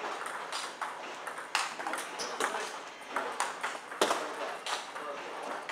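Table tennis ball clicking: sharp, irregularly spaced clicks of the ball off the paddles and bouncing on the table and floor, the loudest about four seconds in.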